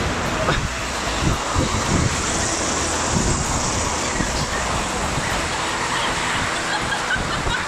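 Steady rushing background noise with faint voices mixed in.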